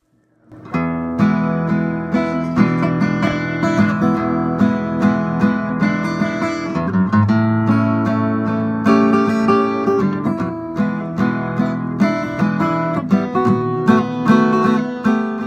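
Acoustic guitar music, strummed and picked, starting about a second in after a brief silence.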